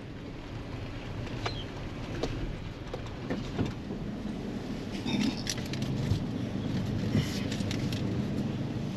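Engine and road noise heard inside the cab of a Toyota pickup moving slowly with a trailer in tow. Scattered light clicks and knocks sound over it.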